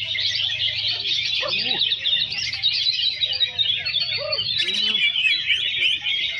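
Many caged songbirds, greater green leafbirds (cucak ijo) among them, chirping and singing all at once in a dense, continuous high twittering. Scattered lower whistled notes rise and fall through the chorus.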